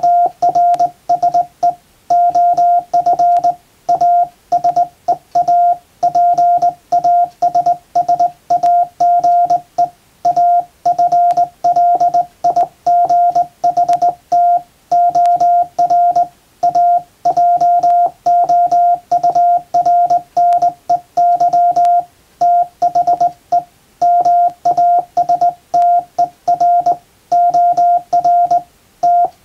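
Morse code keyed by hand on a JRC KY-3A straight key: a single steady beep switched on and off in dots and dashes, the rhythm of hand-sent English telegram text with short gaps between letters and words.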